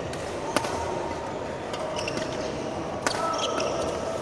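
Two sharp cracks of a badminton racket striking the shuttlecock, about two and a half seconds apart, with short squeaks of court shoes in between.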